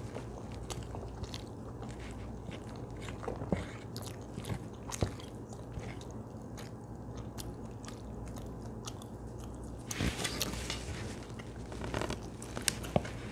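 Close-miked chewing of a mouthful of ground-beef, rice and cheese casserole. Occasional short clicks and scrapes of a wooden fork against the plate come in, with a busier patch of them near the end, over a steady low hum.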